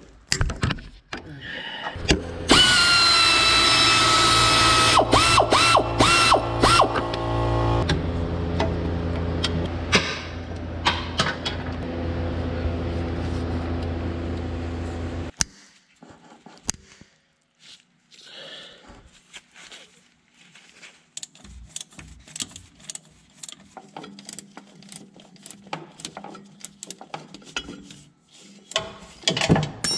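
A cordless power tool spins a socket on the air-conditioning compressor's mounting bolts. It runs with a high, steady whine and some changes of speed for about five seconds, then runs lower and steadily until it stops suddenly about halfway through. After that there are only light clinks and clicks of tools and metal parts.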